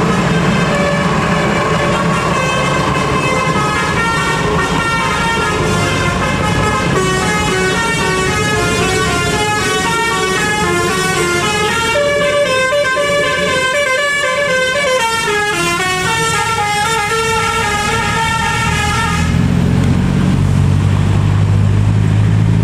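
Bus 'telolet' multi-tone horn playing a quick tune of short stepped notes that jump up and down in pitch. Near the end the tune stops and a louder, low steady hum takes over.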